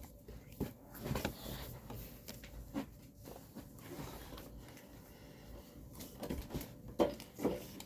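Pokémon trading cards being handled and flipped through: soft scattered rustles and light clicks, with a few sharper taps.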